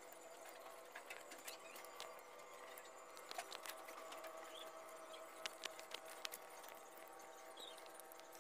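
Faint crackling and small ticks of plastic strands being twisted by hand into a cord, busiest around the middle, over a steady background hum.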